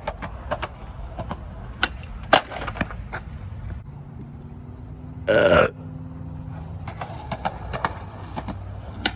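Skateboard on concrete ramps: scattered clacks and knocks of the board and wheels, with a faint rolling hum in the middle. About five seconds in comes one short, loud voiced sound, a yell or burp.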